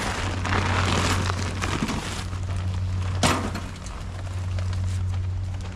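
Rustling and handling of woven plastic sacks, with a single sharp knock a little past the middle, over a steady low hum.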